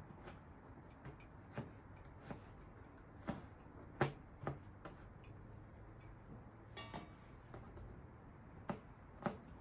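Kitchen knife chopping garlic on a plastic cutting board: single sharp taps of the blade at an uneven pace, roughly one a second.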